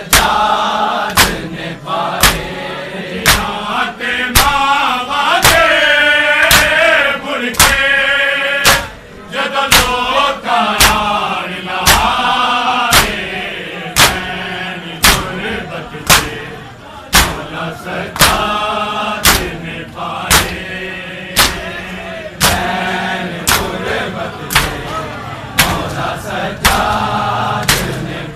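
Mourners beating their bare chests with their hands in unison, sharp slaps about once a second, while male voices chant a Muharram nauha (lament) in time with the beats.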